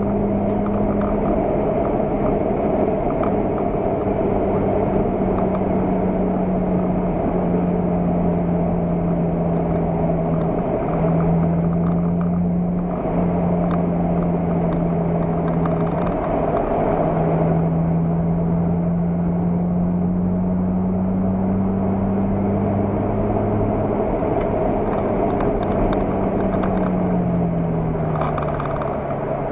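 Car engine under steady load at track speed, heard from inside the cabin along with road and wind noise. Its pitch holds nearly level with a few brief breaks, then falls near the end as the car slows for a corner.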